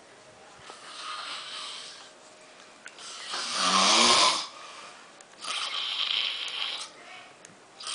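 A sleeping man snoring: three long snores about two and a half seconds apart, the middle one the loudest, with a low buzzing rattle.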